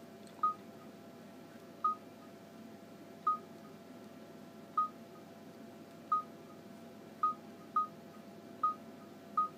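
Samsung GT-S3370 (Corby 3G) phone giving a short single-pitch beep for each tap on its touchscreen, nine beeps at uneven intervals while menus are stepped through.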